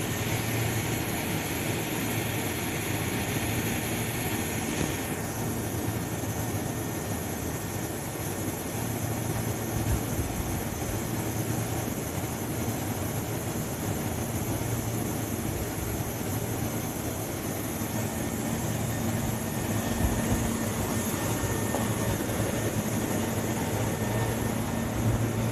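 Steady running hum of a Tobu 350 series electric train during shunting, its low drone swelling and easing at times. A hiss alongside it cuts off about five seconds in.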